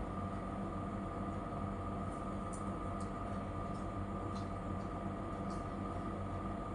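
Steady background hum with a faint high whine, broken by a few faint light clicks as small stones are handled and pressed onto a plastic hair clip.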